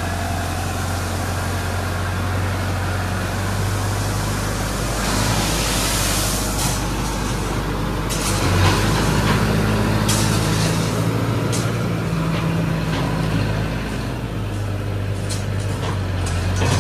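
LS Plus 80 tractor's diesel engine running steadily at a constant speed while the front loader works a heap of crushed stone, with a brief hiss about five seconds in and scattered clicks and scrapes of the bucket on the stone toward the end.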